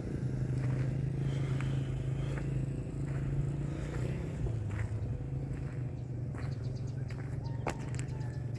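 Small boat's engine running steadily at an even, low pitch, with scattered light knocks and clicks over it.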